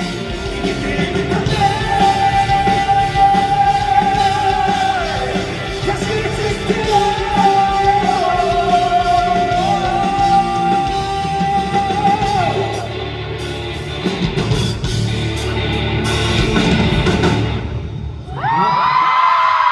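Live rock band with a male lead singer holding long sustained notes, amplified in a large hall. Near the end the music stops and the audience breaks into high-pitched screaming and cheering.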